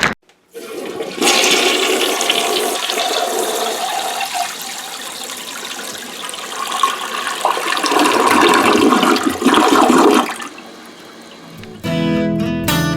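Water rushing and swirling for about ten seconds, like a toilet flushing, then dropping to a quieter trickle. Strummed acoustic guitar music starts near the end.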